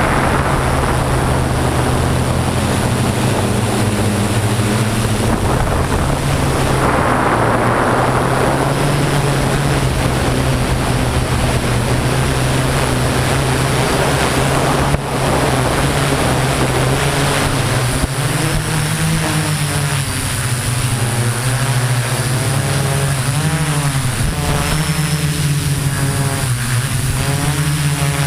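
Homemade multirotor drone's electric motors and propellers running as a steady, loud buzz, the pitch wavering up and down in the second half as the motors change speed.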